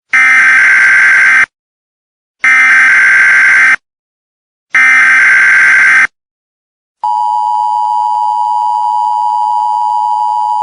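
Emergency Alert System header: three bursts of screeching SAME digital data tones, each about a second and a half long with short silent gaps between them. About seven seconds in, the steady two-tone EAS attention signal starts and holds without change.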